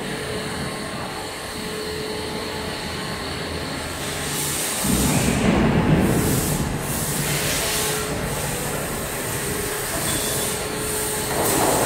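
Machine-shop noise from CNC machining equipment running steadily, with a faint steady hum. A louder rushing noise starts about five seconds in and eases off over the next couple of seconds.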